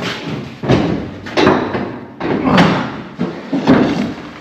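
Several dull thumps and knocks, about four over a few seconds, from things being handled and bumped while working under a car's dash.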